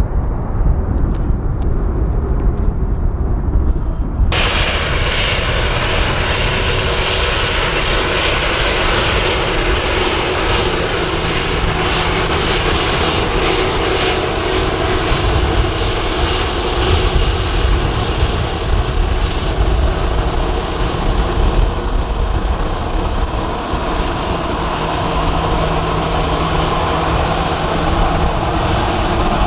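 Gusty wind rumbling on the microphone, then, after a cut about four seconds in, the jet engines of a Lufthansa Airbus A320 taxiing: a steady whine at several pitches over the wind rumble.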